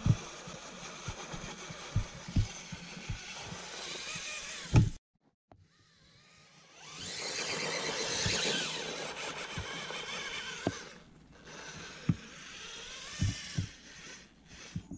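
Axial Capra RC rock crawler's electric motor and geared drivetrain whining as it climbs, with irregular knocks of tyres and chassis against rock. The sound drops out briefly about five seconds in, then comes back louder for a few seconds under load on a steep boulder.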